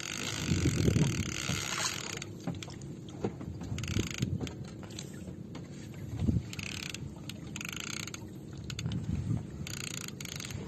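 Fishing reel worked in short bursts while fighting a hooked fish on a bent rod, with scattered knocks and handling thumps against the wooden boat.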